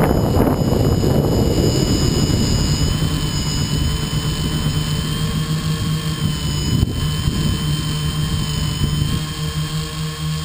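A tricopter's brushless motors and propellers whining steadily, heard from the camera mounted on its own frame. The whine holds several pitches that shift slightly as the motor speeds change, and wind buffets the microphone in the first second or two.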